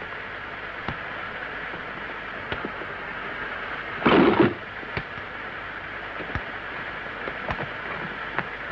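Steady rumbling, hissing sound-effect ambience with scattered crackles, like a distant thunderstorm, and one louder burst about four seconds in.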